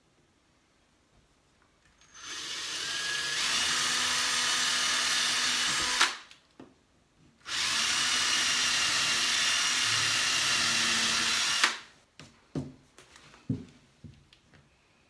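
18-volt cordless drill boring pilot holes with a 3/32-inch bit into a wooden 1x3 board: two steady runs of about four seconds each, the first winding up at its start, each cutting off suddenly, with a pause of about a second and a half between them. A few light knocks follow near the end.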